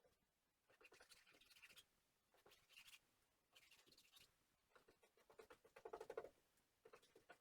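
Faint scratchy strokes, about five of them spaced a second or so apart, each a rapid rasp. This is typical of epoxy resin being worked onto fiberglass cloth inside a wooden hull.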